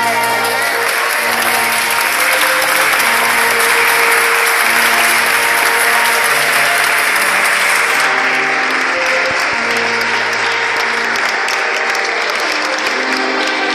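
Guests applauding over music; the clapping swells about a second in and thins out in the last few seconds.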